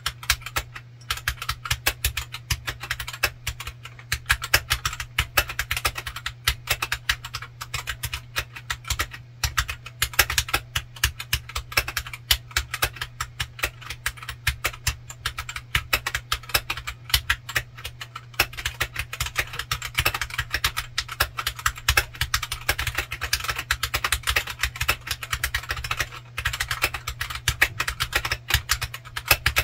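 Continuous fast typing on a Royal Kludge RK100 Pro 96% keyboard with a CNC aluminum case, Gateron Brown tactile switches and PBT keycaps, heard through a phone microphone. The board is stock with no dampening, which the reviewer finds pingy. A steady low hum sits underneath.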